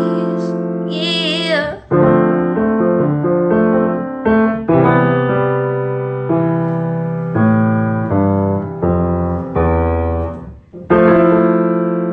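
Keyboard with an electric-piano sound playing slow chords, each struck and left to ring and fade, with the bass note moving under them. A short wavering vocal line comes in about a second in.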